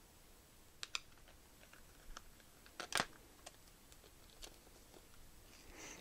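Hard plastic blister pack holding laptop RAM modules being handled and pried open: scattered light clicks and crackles of the plastic, the loudest about three seconds in.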